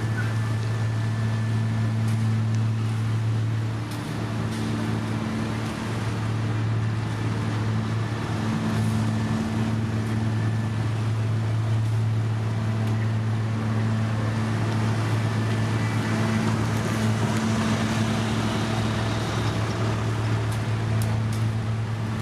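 Heavy diesel engine of road-paving machinery running steadily, a constant low hum under a broad mechanical noise.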